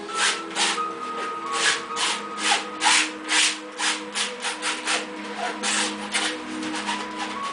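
Paint being scrubbed onto a stretched canvas in quick rubbing strokes, about two a second, over soft background music with long held notes.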